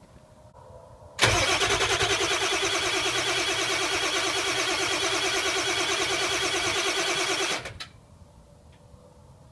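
Ford 7.3 Power Stroke V8 diesel cranking over on the starter with a fast, even pulsing, for about six seconds, then stopping abruptly without catching. It is a cold start with no working glow plugs, the exhaust stuffed with rags to build back-pressure and heat.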